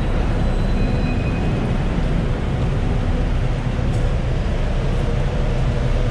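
Steady low rumble of heavy traffic on a busy city road.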